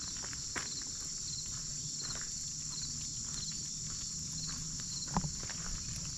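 Footsteps crunching on a gravel path, a few separate steps with the sharpest about five seconds in, over a steady high drone of insects with short chirps repeating every half second or so.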